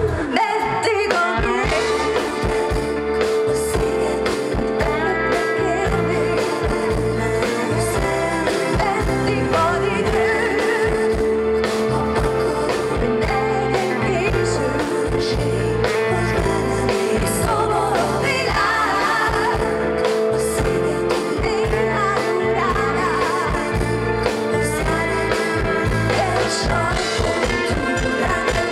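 Live pop-rock band playing through a concert PA, with a woman singing over guitar, bass and drums.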